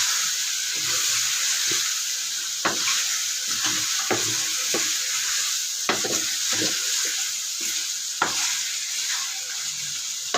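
Chicken with spices and tomatoes frying in a pan with a steady high sizzle, while a spoon stirs it, scraping and clicking against the pan every second or so.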